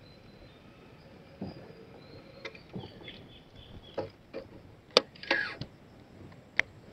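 Scattered clicks and knocks from a Daiwa Tatula baitcasting reel and rod being handled as the lure is wound in to the rod tip. The sharpest click comes about five seconds in, right before a short rustling burst, with one more sharp click near the end.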